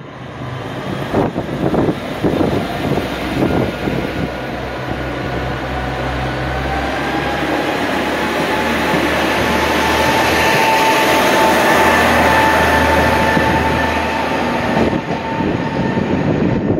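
Orange diesel railcar pulling away from the platform close by: engine running and wheels rolling. A whine rises slowly in pitch as it gathers speed, loudest about two-thirds of the way through, then fades as it moves off.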